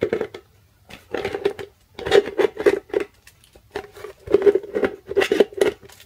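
Hand snips cutting into the thin steel wall of a tin can to open a hole in it: a dozen or so short crunching snips in clusters, each with a brief ring from the can.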